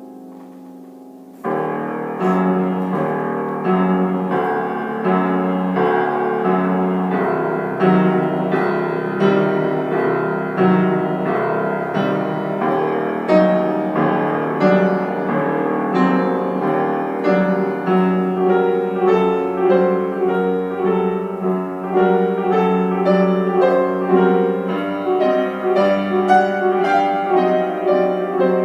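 Solo piano playing: after a faint, fading note, loud repeated chords start abruptly about a second and a half in and carry on in a steady pulse.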